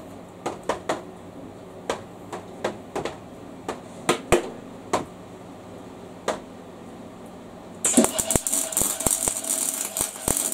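Scattered light knocks and clicks of metal being handled, then about eight seconds in an electric arc welder strikes up and runs with a dense, steady crackle as a nut is welded on.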